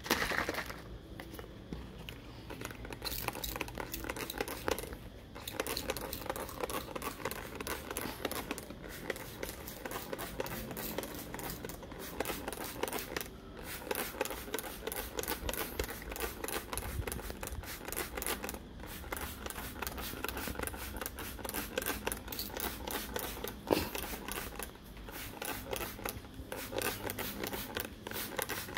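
Thin plastic bottles being handled and squeezed: a busy, irregular crinkling and clicking of plastic.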